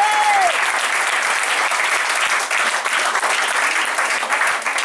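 Audience applauding steadily and loudly. A held high note ends about half a second in.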